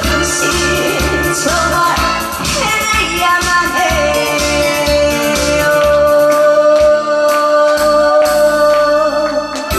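A woman singing to a musical accompaniment with a steady beat, holding one long note through the second half; the beat's low end drops out briefly near the end.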